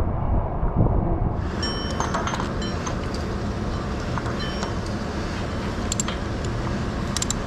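Steel-tower construction noise: a steady low rumble, a hiss that comes in suddenly about a second in, and scattered metallic clinks of bolts and tools on steel.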